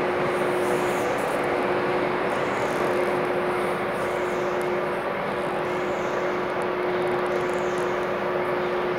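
Steady drone of machinery running in a woven plastic sack factory: a constant hum over an even hiss, with no pauses or knocks.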